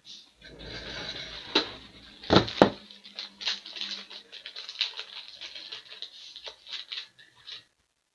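Crinkling plastic packaging being handled, with a few sharp clicks early on and then a long run of small irregular crackles and ticks; this fits trading-card supplies such as a pack of plastic card sleeves being opened and sorted.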